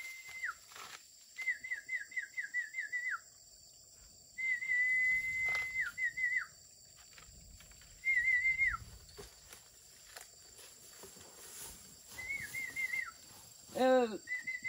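High whistled phrases repeated every second or two. Each is a quick warble, or a held note, that ends in a falling slur. Near the end there is a short rising cry.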